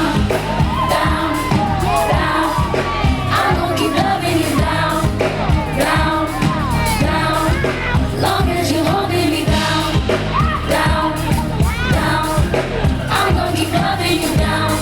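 Live pop song played over a PA: women's voices singing over a backing track with a steady, bass-heavy beat, with crowd noise underneath.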